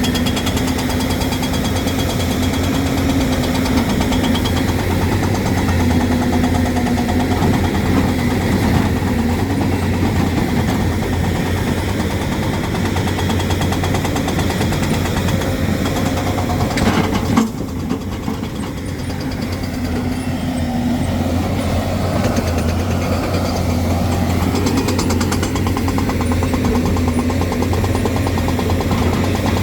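Hyundai excavator's diesel engine running steadily under work. There is a single sharp knock about two-thirds of the way through, after which the engine sound drops briefly and then builds back up.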